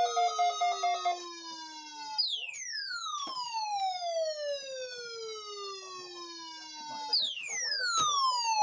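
An electronic siren tone sweeping down in pitch, each fall lasting about five seconds and starting over twice, about two seconds in and again about seven seconds in. A steady pulsing tone under the first sweep stops about a second in.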